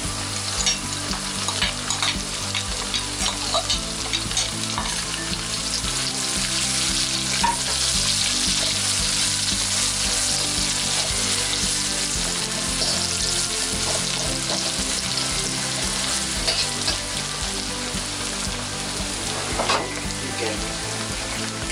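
Chopped onion and garlic sizzling in hot oil in a wok, stirred with a metal spatula that scrapes and clicks against the pan. The sizzle is steady and grows a little louder partway through.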